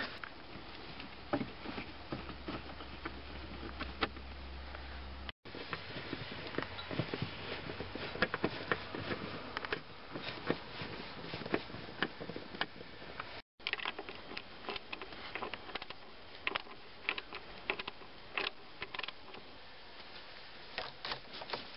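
Hand screwdriver driving screws into a plastic lower dash panel: scattered small clicks and scrapes of the tool against the screws and plastic. The sound cuts out completely twice, briefly.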